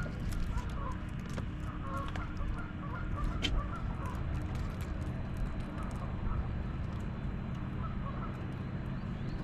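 Geese honking repeatedly at a distance over a steady low rumble.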